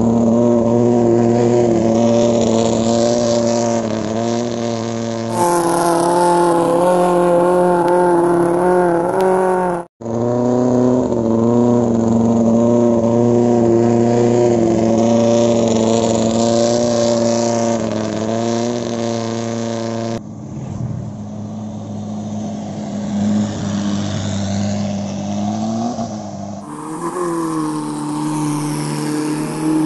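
Racing longtail boat engines running hard as the boats speed past, a steady high-revving note over the hiss of spray. The note changes abruptly several times, with a brief dropout about ten seconds in, as one run gives way to another.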